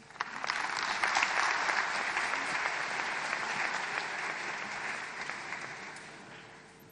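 Audience applauding in a concert hall. The clapping starts at once, holds steady, then dies away over the last two seconds.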